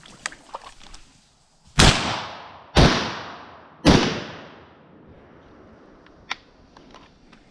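Three shotgun shots about a second apart, each trailing off in a long echo through the woods.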